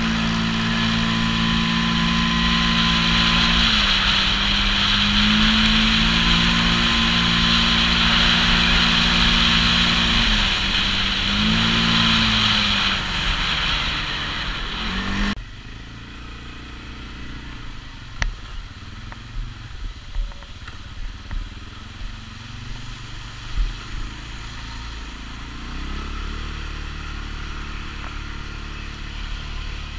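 CFMOTO CForce ATV engine running under way, its pitch rising and falling with the throttle, under loud wind and road noise. About halfway through the sound drops abruptly to a quieter engine note, with a few short knocks and bumps from the rough trail.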